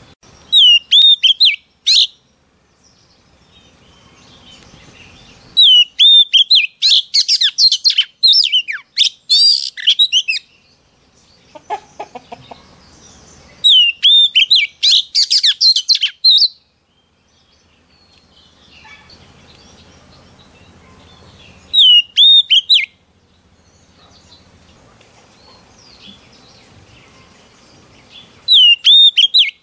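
Oriental magpie-robin singing: loud bursts of rapid, whistled phrases that slide up and down, five bursts with pauses between, the longest about four seconds. A brief, lower call about twelve seconds in.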